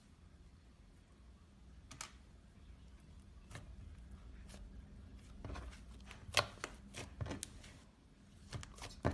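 Faint scattered clicks and taps, a few at first and then more often in the second half, over a low steady hum.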